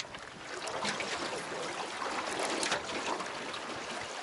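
Water splashing and lapping around a small boat: a steady wash with a few scattered splashes, the loudest about two and a half seconds in.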